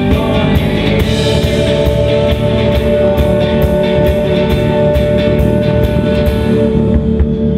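Indie pop band playing live: electric guitar strummed over bass and drums, with a steady cymbal beat about every half second that drops out near the end.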